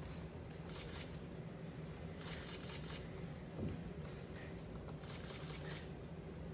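Soft swishes of martial arts uniforms and bare feet sliding on foam floor mats as two students perform a pattern, over a steady low hum; a brief low sound about three and a half seconds in.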